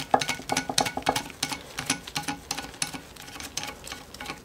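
A large steel nut being turned by hand on the threaded shaft of a vintage Kagen ring stretcher. It makes a rapid, irregular run of small metallic clicks and ticks.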